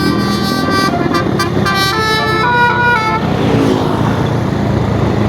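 Bus telolet horn playing a basuri melody of quick stepped notes, cutting off about three seconds in, then the bus engine running with street noise.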